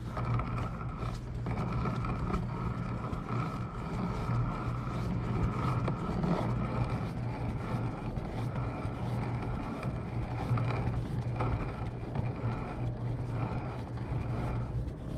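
Metal lathe turning: a steady motor hum with a fainter high whine, the chuck spinning without a break.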